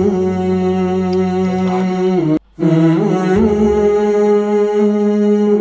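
Multitrack a cappella arrangement playing back unmixed: layered sung 'aah' harmonies held over a low sung bass line, with the chords changing slowly. The sound cuts out briefly about two and a half seconds in.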